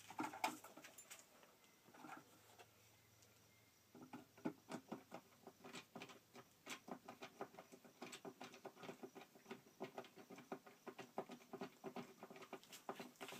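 Faint irregular clicking and scratching of hands working thin wires into a solar charge controller's screw terminals. It grows into a busy run of small ticks from about four seconds in.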